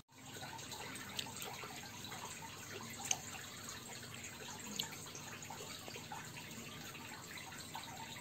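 Faint, steady background hiss with a few light clicks, about a second, three seconds and nearly five seconds in.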